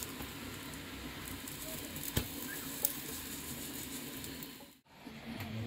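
Paratha sizzling on a hot flat griddle as a metal spatula presses it down, a steady frying hiss with two sharp taps about two seconds in. The sizzling cuts off suddenly near the end.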